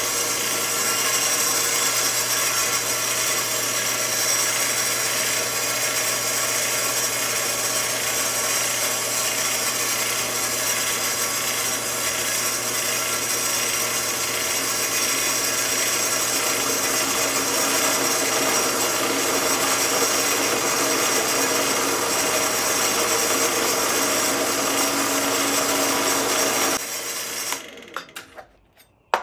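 A benchtop drill press runs steadily while its twist bit drills through a galvanized steel bed-support bracket, with a steady motor hum under the cutting noise. About 27 seconds in, the motor is switched off and spins down, followed by a few light clicks.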